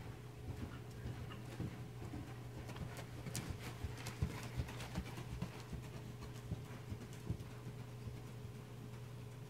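Hoofbeats of a Percheron–Quarter Horse cross gelding trotting on soft arena footing, soft repeated thuds that are clearest as the horse passes close, about four seconds in. A steady low hum runs underneath.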